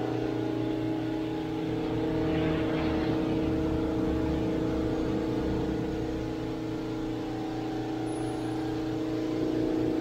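Car-wash pressure washer's motor running with a steady hum.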